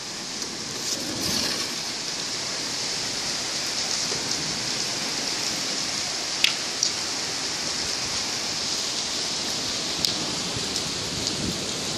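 Steady rain during a storm, an even hiss with a few sharp drop hits, the loudest about six and a half seconds in.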